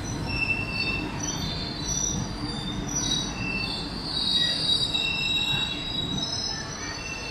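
Indian Railways ICF passenger coaches rolling past close by, their steel wheels squealing on the rails in several high-pitched tones that come and go over a steady low rumble.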